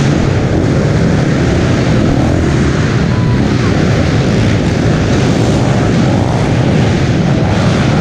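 Piranha P190R pit bike's 190cc four-stroke single-cylinder engine running under throttle on a dirt motocross lap, recorded close up from on board the bike.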